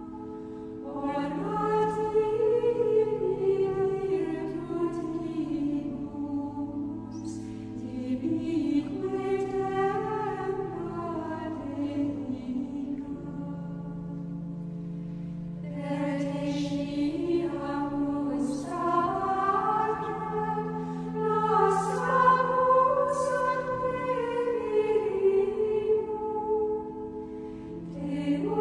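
Women's choir of Benedictine nuns singing Latin plainchant (Gregorian chant), the melody moving in slow steps over steady low notes held a few seconds each, with short breaths between phrases just after the start and near the end.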